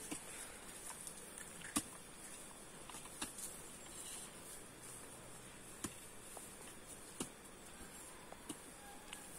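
A few faint sharp snaps or taps, roughly every one to two seconds, over a steady high-pitched insect drone.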